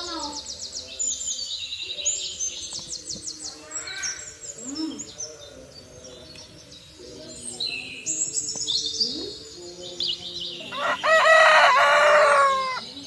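Small birds chirping and trilling in quick high runs, with one loud, drawn-out call of about two seconds near the end.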